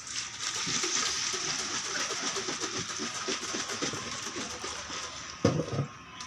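Thinned enamel paint pouring from a metal tin into a bucket, a steady splashing pour that slowly tapers off. Near the end the tin is set down with a knock.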